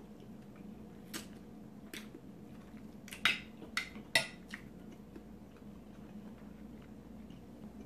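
A metal fork clicking against a plate while picking up food: a couple of light clicks, then a quick cluster of louder clicks a few seconds in.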